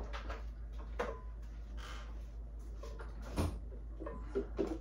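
An interior door being opened by its knob: a sharp click about a second in, a louder knock a little after three seconds, and a few lighter clicks near the end, over a steady low hum.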